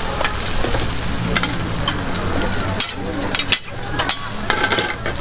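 Food sizzling and frying on a street-stall toast griddle, with several sharp clicks in the second half.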